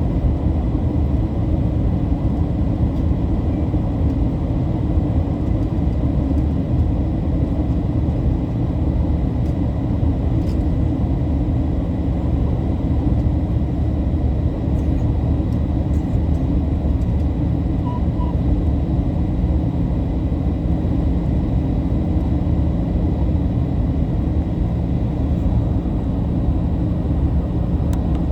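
Steady low rumble of a Boeing 737-800's CFM56 engines and airflow heard inside the passenger cabin, with no change in pitch or level.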